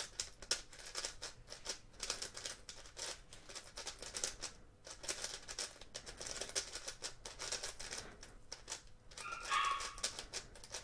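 X-Man Galaxy Sculpted megaminx being turned by hand straight out of the box: a fast, uneven run of light plastic clicks and scrapes.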